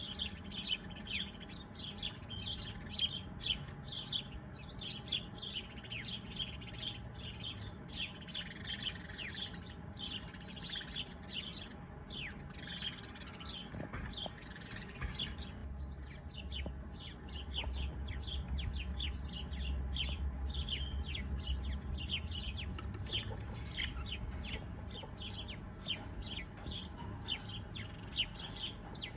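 Many birds chirping, a dense, continuous chorus of short, quick high-pitched calls, with a faint low rumble swelling from about 16 to 22 seconds in.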